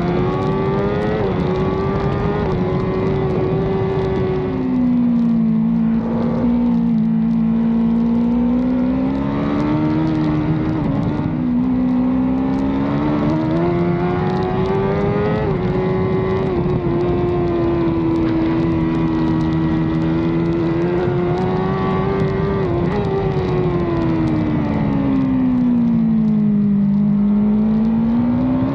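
Racing motorcycle engine heard onboard at race pace, its revs rising and falling through the corners. The revs drop sharply about four seconds in, hold high and steady through the middle, then fall away and climb again near the end.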